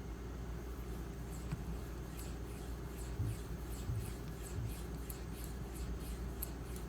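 Knife blade of M390 steel stroked freehand across an Edge Pro 4000-grit diamond matrix stone to polish the bevel: a light, quick scraping, about three strokes a second.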